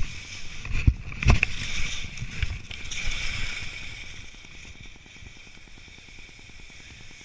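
Skis sliding and scraping over spring snow, with a loud hiss that eases off after about four seconds. Two sharp knocks about a second in.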